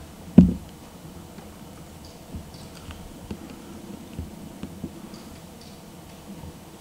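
A single loud thump about half a second in, then scattered faint clicks and taps over quiet room tone.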